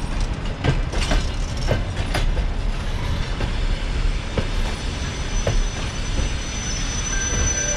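Russian passenger coaches rolling past slowly as the train arrives, with a steady rumble and irregular clacks of wheels over rail joints. About five seconds in, a thin high squeal from the braking wheels starts.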